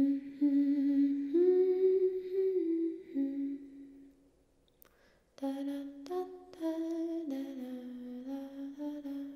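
A voice humming a slow melody of long held notes in two phrases, with a pause of about a second between them.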